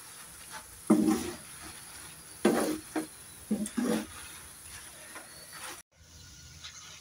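Steel spoon stirring whole dried red chillies, garlic and ginger frying slowly in oil in a pan over low heat: a handful of short irregular scrapes and rustles over a faint sizzle.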